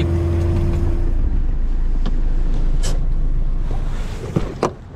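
Van engine and road noise heard from inside the cab while driving: a steady low drone, with a few short clicks and rattles, quietening near the end.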